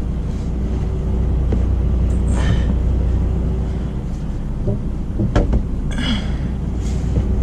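A small dorm refrigerator being shoved and bumped into a cabinet opening. There are brief scraping rushes and a couple of sharp knocks about five seconds in, over a steady low rumble from the idling truck.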